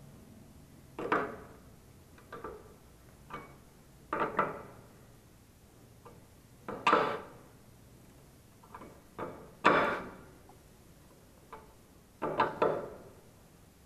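Metal clinks and knocks of a box spanner being fitted to and turned on the lower mounting nuts of a scooter's front shock absorber. About a dozen short ringing taps come irregularly, a second or two apart.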